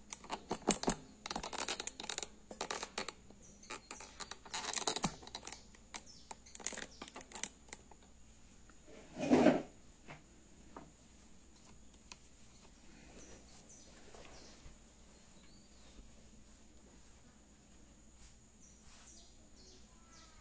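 Handling noise from a phone camera being picked up and repositioned: a quick run of clicks, taps and rustles, with one louder bump about nine seconds in, then much quieter.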